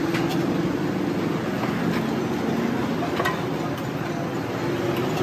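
A motor vehicle engine running steadily close by, a low even hum, with a few light clinks of a steel serving spoon against a plate.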